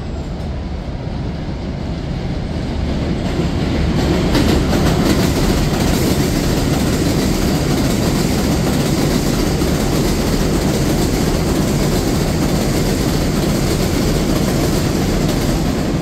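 An R188 subway train running over the elevated steel flyover track without stopping. It makes a steady wheel-and-rail rumble that grows louder over the first four seconds and then holds, with a few clicks about four seconds in.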